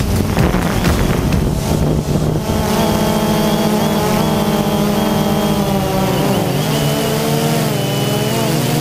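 Quadcopter drone's motors and propellers buzzing, heard from a camera mounted on the drone, with wind noise on the microphone. A few seconds in, the buzz sharpens into a clear whine whose pitch wavers up and down as the motors change speed.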